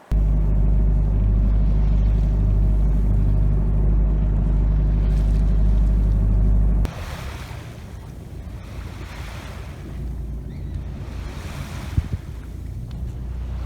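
A loud, steady low drone cuts off suddenly about seven seconds in. After it, wind and water rush past a sailing boat in slow swells, with a single short knock near the end.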